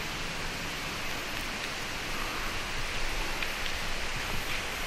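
Steady hiss, strongest in the upper-middle range, with a few faint high ticks about two and three and a half seconds in.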